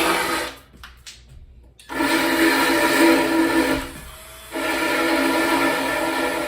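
Hyper Tough 20-volt cordless drill with a sanding disc attachment, its motor running with a steady whine. It stops about half a second in, starts again about two seconds in, and dips briefly near four seconds, as the trigger is released and squeezed again.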